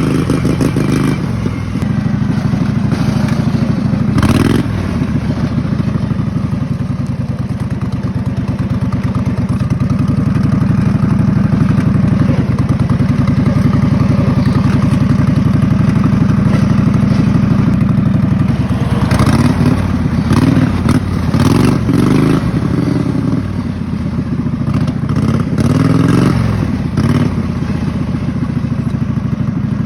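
Race mower's Kohler Command V-twin engine running at speed, steady for the first part, then its pitch dipping and rising several times in the second half.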